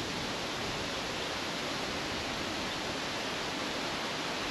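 Steady rush of wind through leafy trees, the wind having suddenly picked up ahead of an incoming thunderstorm.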